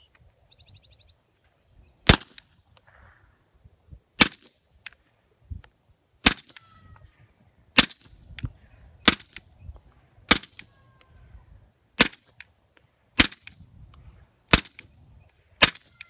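Suppressed CZ P-09 Duty pistol firing subsonic ammunition: ten short, sharp shots spaced about one to two seconds apart. The pistol cycles reliably with the suppressor on.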